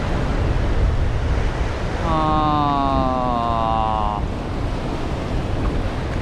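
Wind buffeting the microphone over surf washing across a shallow reef, a steady low rumble. About two seconds in, a drawn-out tone that falls slightly in pitch sounds for about two seconds.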